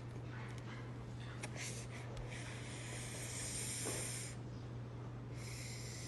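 Two long breathy exhales close to the phone's microphone, about two seconds each, over a steady low electrical hum.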